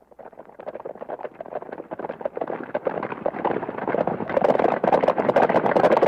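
Carriage horses' hooves clip-clopping in a quick, dense run, fading in from silence and growing louder, loudest from about four seconds in.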